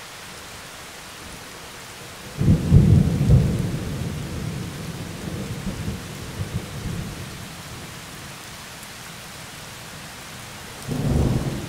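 Steady rain with a deep rumble of thunder that swells a couple of seconds in and fades away over several seconds, and another short rumble near the end.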